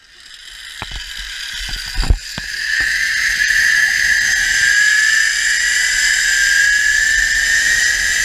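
Zipline trolley pulleys running along the steel cable: a whine that builds over the first few seconds and slowly climbs in pitch as the rider gathers speed. There are a few sharp knocks around the launch, the loudest about two seconds in, and a low wind rumble on the microphone.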